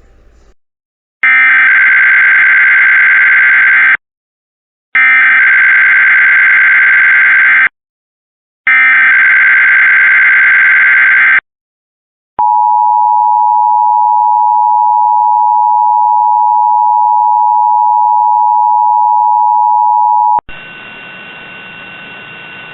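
Emergency Alert System header tones from a radio broadcast: three bursts of warbling SAME digital data, each about three seconds long with short gaps, then the steady two-tone attention signal held for about eight seconds. This is the opening of a Required Monthly Test. A hiss of background noise follows near the end.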